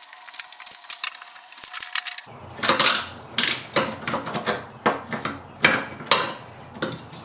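Irregular metallic clicks, clinks and knocks of hand tools and parts being worked loose in a truck's engine bay.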